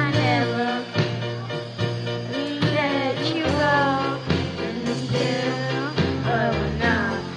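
Two boys singing a song into handheld microphones over a backing track with a bass line and a steady beat.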